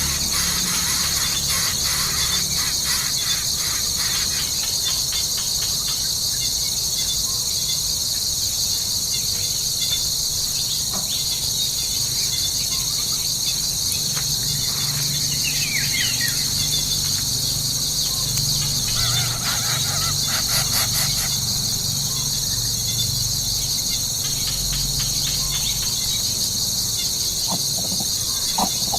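Steady, loud, high-pitched chorus of insects singing without a break. A few brief squeaky calls come through about halfway and again near the end.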